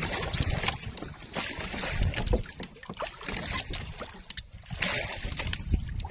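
Sea water lapping and sloshing against the hull of a small fishing boat, with a low rumble and scattered light knocks and clicks.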